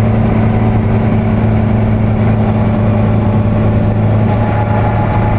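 Car driving at a steady speed: a steady low engine and road drone that holds one pitch throughout.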